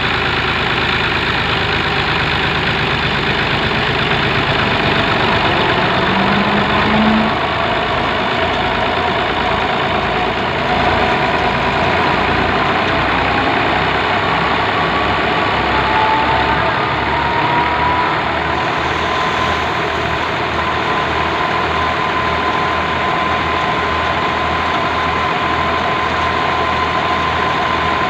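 Tractor diesel engine running steadily under load while it drives a belt-powered thresher threshing mustard stalks. A thin whine rises slightly past the middle and then holds over the engine's low, pulsing run.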